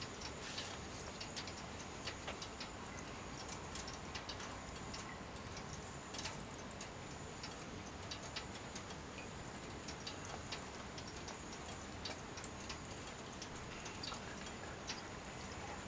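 Water dripping from the bottom of sand-filled chambers into aluminium foil trays as excess irrigation water drains through the sand: irregular light ticks over a faint steady hiss.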